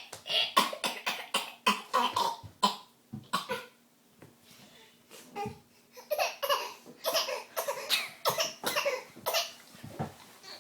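Repeated fake coughing by a child, short coughs in quick runs with some laughter mixed in, broken by a quieter pause of about two seconds near the middle.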